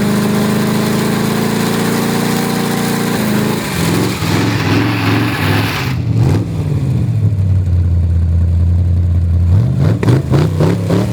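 Holden 253 V8 engine in a ride-on mower revving hard and held up for several seconds, with a broad hiss over it. About six seconds in it drops to a steady lower note, then is blipped up and down a few times near the end.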